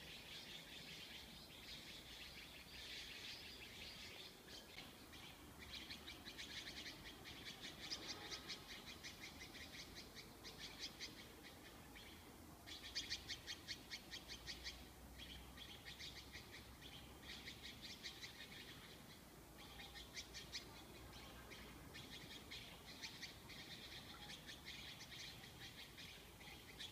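Faint birdsong from the surrounding trees: rapid chattering trills in repeated bouts of a second or two.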